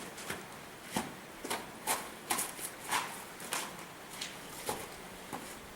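A series of short, sharp taps and clicks at uneven spacing, roughly two a second, over a faint steady hiss.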